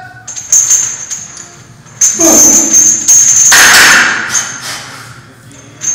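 Barbell bench press with hanging steel chains: the chain links clink and jingle with a high metallic ring as the bar moves, with a few hard knocks of metal, a short grunt about two seconds in, and a sharp breath soon after.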